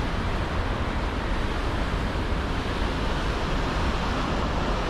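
Steady rush of turbulent river water pouring out below a dam, an even unbroken roar with a heavy low rumble.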